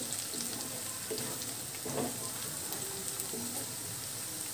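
Chopped onions and green chillies sizzling steadily in hot oil in a non-stick pan, stirred with a wooden spatula.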